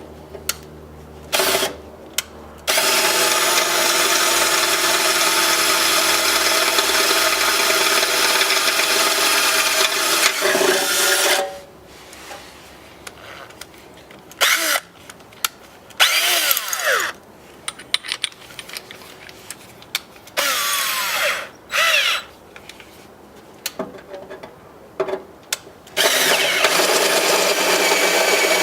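Power drill enlarging a pilot hole in the car's fender well to take a rivet nut. One long run of about nine seconds, then several short bursts with the motor spinning up and winding down, and another steady run near the end.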